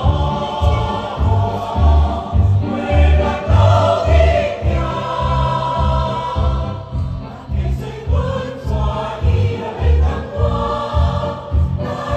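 A choir singing a lively Taiwanese Hokkien song over accompaniment with a steady low beat about twice a second.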